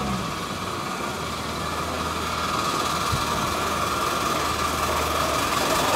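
Ride-on miniature steam locomotive running along its track, getting gradually louder as it comes closer, with one sharp click about three seconds in.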